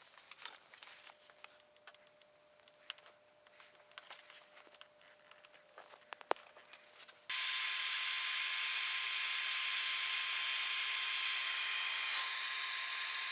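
Faint scattered clicks and knocks of battery cables and hardware being handled, with one sharper click about six seconds in. About seven seconds in, a steady hiss starts suddenly and holds at an even level.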